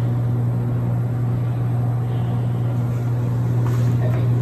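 Steady low hum of a bathroom exhaust fan running, switched on with the lights.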